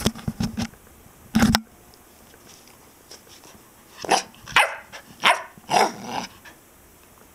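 Black puppy barking, about five short, sharp barks in quick succession about four seconds in, after a loud thump about a second and a half in.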